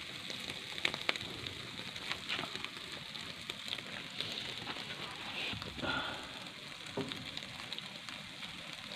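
Pork sizzling in a wire grill basket over a crackling wood fire: a steady hiss with frequent small pops and crackles, a few louder ones past the middle.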